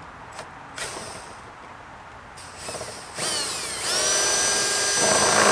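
Power drill spinning up with a rising whine about three seconds in, then running steadily at full speed.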